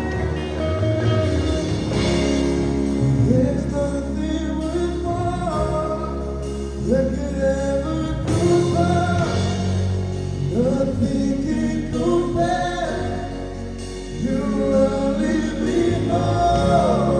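Live band playing a slow song, with several men singing over keyboard, electric guitar, bass and drums.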